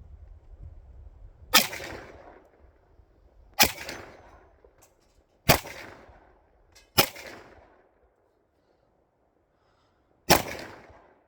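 Five single shots from a CZ52 semi-automatic pistol in 7.62×25 Tokarev, each a sharp crack with a short echoing tail. The first four come about two seconds apart, and there is a pause of about three seconds before the fifth.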